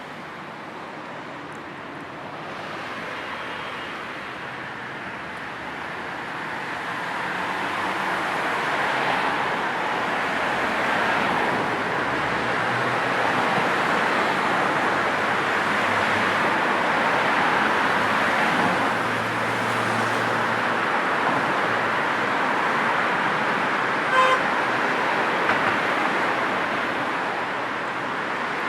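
Road traffic noise: a steady wash of passing vehicles and tyres that builds over the first ten seconds and then holds. About twenty-four seconds in, a car horn gives one short toot.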